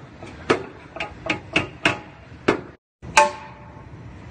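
Hammer blows on the cut end of a steel car frame rail: about six sharp, irregular metal strikes, a short break, then one more strike that rings on briefly. The rail end is being knocked in slightly to form a backer for the new rail section to sit over.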